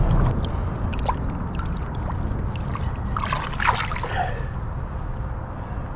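Lake water sloshing and splashing against a hand as a large crappie is held in the water and released, with a cluster of splashes about three to four seconds in. A steady low rumble runs underneath.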